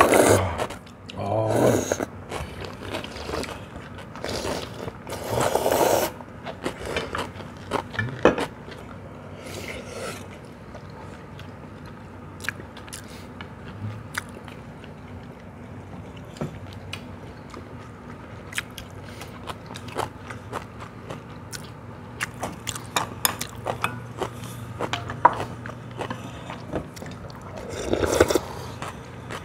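People slurping cold soybean-broth noodles and chewing, with chopsticks clicking and scraping against stainless steel bowls. Several loud slurps come in the first six seconds and another near the end, with small clicks in between.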